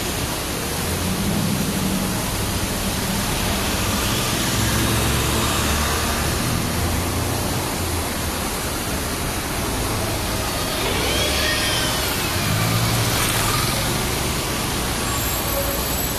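City street traffic noise: a steady hiss with the low rumble of passing vehicle engines rising and falling.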